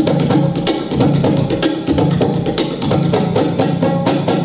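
Tabla played in quick, even strokes, about six or seven a second, with low bass-drum tones under the sharp treble strokes: a tabla imitation of a train engine's rhythm as it slows down.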